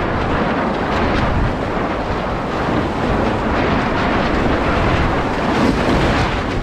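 Wind buffeting the microphone over water rushing and splashing along the hull of a heeled racing sailboat sailing fast on a reach. It is a steady, loud rush with no engine and no voices.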